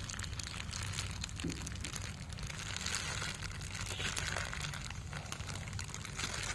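Thin plastic bag crinkling and rustling as it is handled and a whole braised pork leg is slid out of it into a bowl of broth.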